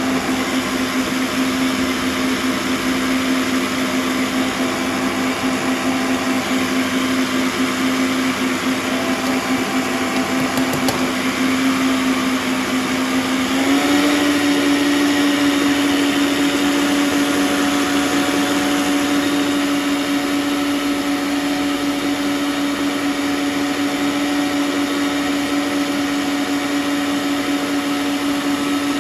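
Electric stand mixer running at high speed, its whisk whipping eggs and sugar with a steady motor hum. About halfway through, the motor's pitch steps up a little as it speeds up.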